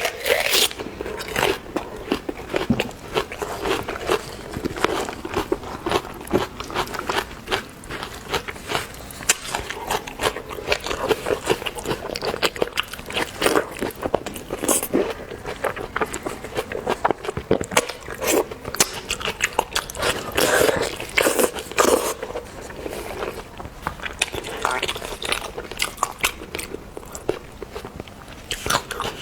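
Close-miked eating: a person biting and chewing seafood, with many quick clicks and crunches from the mouth.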